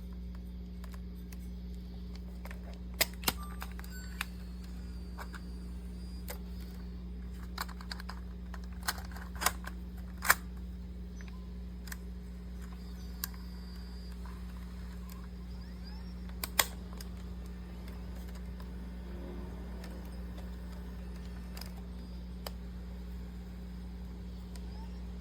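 Scattered sharp clicks and taps of a camcorder being handled, over a steady low hum. The loudest clicks come about three seconds in, around nine to ten seconds, and near sixteen seconds.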